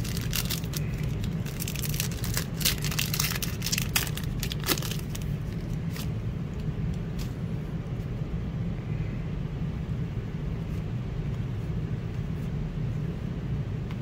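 Foil wrapper of a Fortnite trading-card pack crinkling and crackling as it is opened and the cards are pulled out, dense for about the first five seconds and then dying away. A steady low hum runs underneath.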